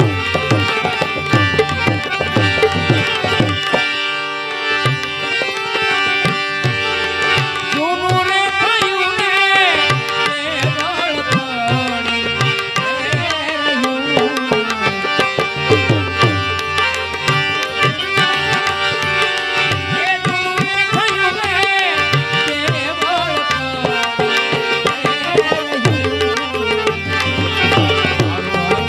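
Instrumental interlude of Gujarati santvani devotional music: tabla keeping a rhythm under steady held notes, with a melody that bends in pitch.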